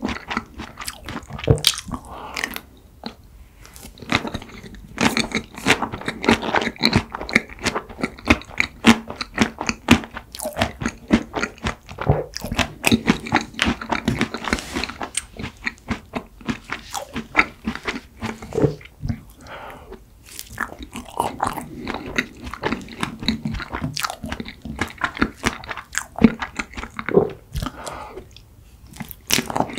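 Close-miked chewing and crunching of mint chocolate ice cream cake and a chocolate cookie ice cream sandwich: many sharp crunches in quick succession, with a few short pauses between mouthfuls.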